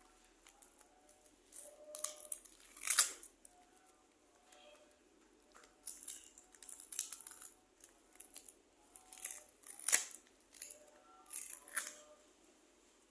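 Paper being handled and cut with scissors: a series of short, crisp snips and rustles, the loudest about three seconds in and again about ten seconds in.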